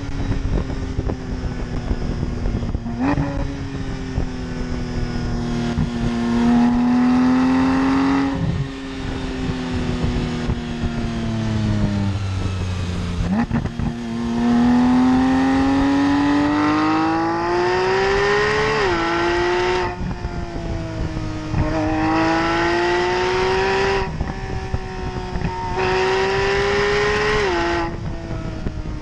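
Porsche 911 GT3 flat-six heard at its exhaust, pulling hard through the gears: the engine note climbs, drops sharply at each quick upshift, and rises briefly once around the middle, like a throttle-blipped downshift.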